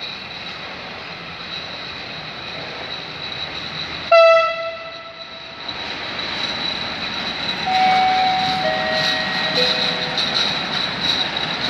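ET22 electric locomotive hauling a loaded freight train of Talbot hopper wagons rolls past, sounding its horn in one loud blast of about a second and a half some four seconds in. The rolling noise of the train grows as the locomotive draws level, with a few brief high squeals from the wheels about two thirds of the way through.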